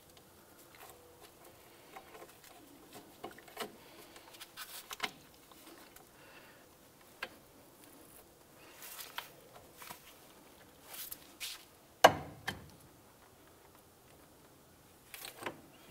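Hand work on a car's front suspension: scattered light clicks and scrapes as a pry bar levers the sway bar and a washer and rubber bushing are worked onto the sway bar end link stud. One louder metal knock comes about twelve seconds in.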